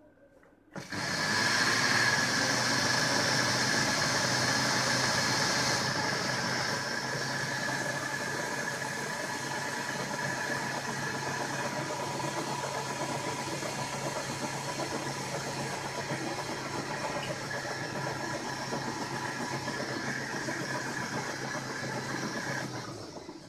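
Electric countertop blender motor running steadily as it beats eggs, sugar and vanilla for a sponge-cake batter. It starts about a second in, is a little louder for the first few seconds, and runs down just before the end.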